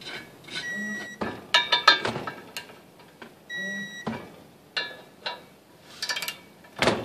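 Socket wrench tightening half-inch bolts into a steel cross member: bursts of ratchet clicks and metal clinks, loudest about two seconds in and again near the end, with two short steady beeps about three seconds apart.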